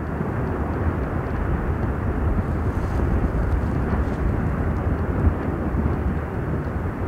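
Lava fountain of Piton de la Fournaise erupting: a loud, steady, deep rushing rumble that does not break.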